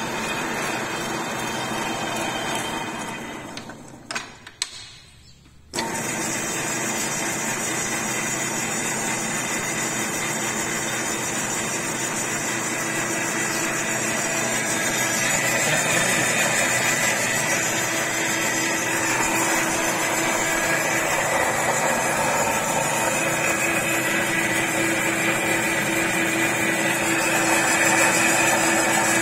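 Old belt-driven metal lathe running on a test after its bed was reground: a steady machine hum with a steady whine. About four seconds in the sound sinks away, then comes back suddenly near six seconds.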